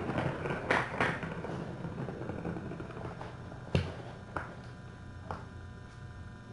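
A few scattered sharp knocks and clicks, about a second in and again near the middle, over a low steady hum in a small room.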